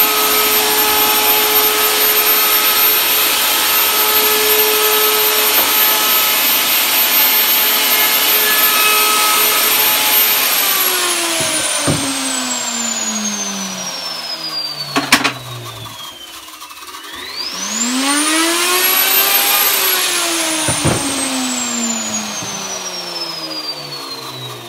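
Electric hand router running steadily while rounding over the edge of a wooden arched window frame, then switched off about ten seconds in, its pitch falling as the motor winds down, with a few knocks. A few seconds later a motor starts again, its whine rising for about two seconds, then is switched off and winds down with a falling pitch.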